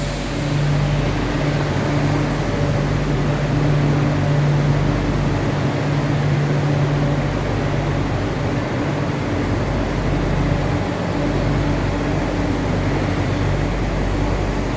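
Madrid Metro series 8000 train on Line 6 running in the station: a steady rumble and running noise, with a low electrical hum from its equipment that drops in and out.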